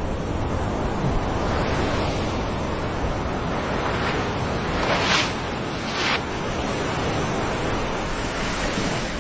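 Steady rush of ocean surf, with two brief louder washes about five and six seconds in.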